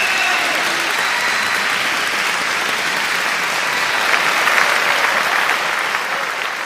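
Crowd applauding steadily, swelling a little about four seconds in.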